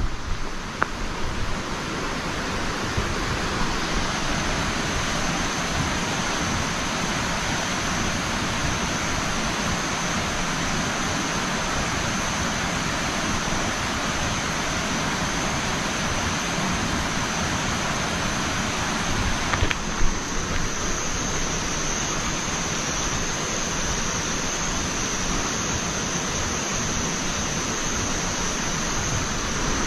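Steady rushing outdoor noise with a constant high-pitched whine over it, and a single short knock about twenty seconds in.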